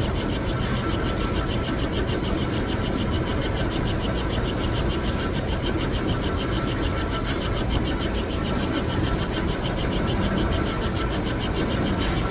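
Metal lathe running steadily, a continuous mechanical hum with a fast, even rhythmic texture.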